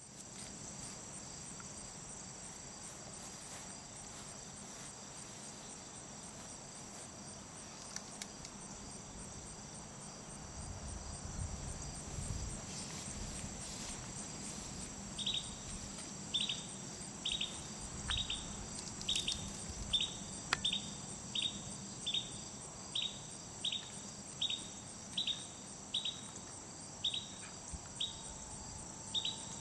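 Steady, high-pitched chorus of summer insects. From about halfway through, a short falling chirp repeats about one and a half times a second, louder than the chorus.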